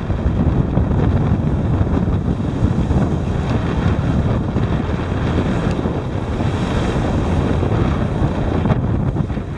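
Wind buffeting the microphone on a moving ship's open deck, a dense low rumbling rush, with the wash of the ship's wake beneath it.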